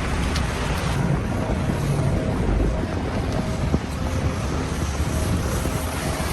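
City street ambience: a steady low rumble of traffic with a noisy hiss above it, and one short sharp click a little under four seconds in.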